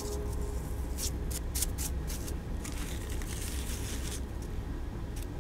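Paper flowers and card embellishments being handled and pressed into place: soft paper rustles and small scattered clicks over a steady low hum.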